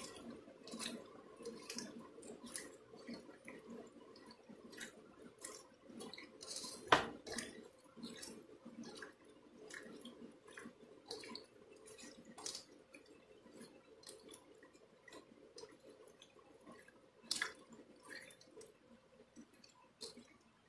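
Hands squishing and kneading sliced pork and onions in a wet, spicy marinade in a bowl: soft irregular squelches and clicks, with two louder knocks, one about seven seconds in and one near the end.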